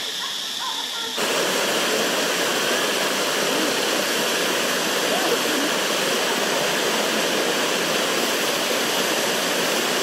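Shallow water rushing down a limestone waterfall cascade: a loud, steady rush of water that starts suddenly about a second in.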